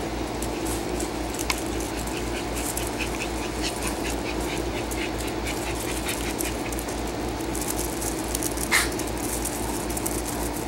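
Small dogs playing on a raised fabric dog cot: a run of light ticks and scuffles, and one brief sharp sound a little before the end, over a steady low hum.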